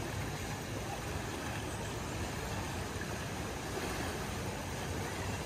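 Creek in flash flood, muddy water rushing steadily past a low footbridge.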